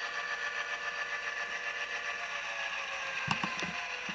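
Tsunami sound decoder in an HO-scale GP7 model locomotive playing a steady diesel-engine idle through the model's small speaker, thin and without any low end. A few short clicks come near the end.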